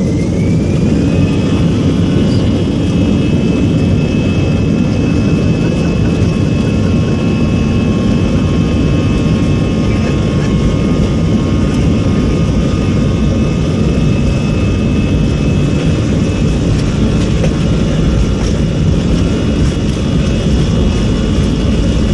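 Airbus A320-214's CFM56 jet engines heard from inside the cabin, spooling up to takeoff thrust: a whine rises in pitch over the first second or so, then holds steady above a loud, even rumble of the takeoff roll.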